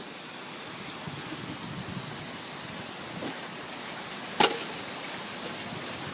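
Heavy hurricane rain and wind making a steady rushing hiss, with one sharp click about four and a half seconds in.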